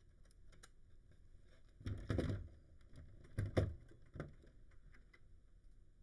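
Handling noise from a 2GIG GC3 plastic touchscreen alarm panel: small clicks as a USB stick is plugged into its top slot, and two louder knocks, about two and three and a half seconds in, as the panel is put back on its wall bracket.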